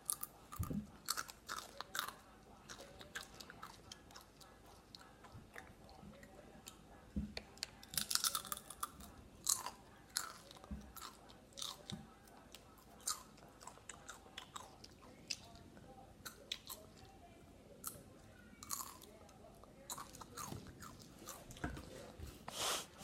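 Chips being bitten and chewed, an irregular run of sharp crunches with short pauses between.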